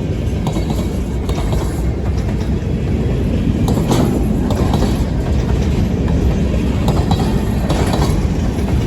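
Freight cars of a long train rolling past on the rails: a steady low rumble, with a few sharp clacks of wheels passing over rail joints.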